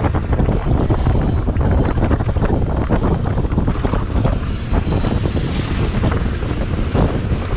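Long train rolling past with a steady rumble and clatter, with wind buffeting the microphone.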